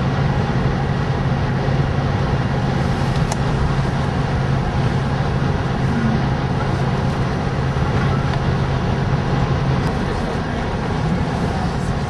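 Steady engine and road noise heard from inside a moving van, with a constant low hum.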